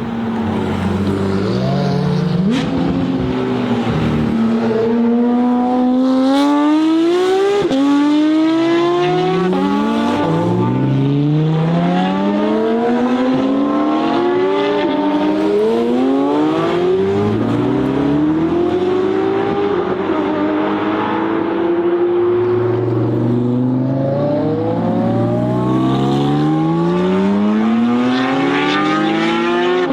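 Supercar engines accelerating hard, the engine note climbing and dropping back at each gear change, again and again, with a couple of sharp cracks early on.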